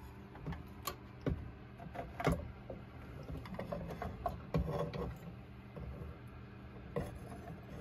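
Scattered clicks, taps and knocks of the Sol-Ark 12K inverter's battery breaker being handled and pulled free of its mount, with a busier run of small rattling knocks about three to five seconds in.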